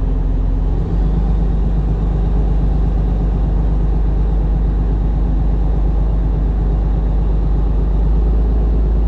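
Fishing boat's engine running steadily under way, a loud low rumble that steps up slightly about a second in.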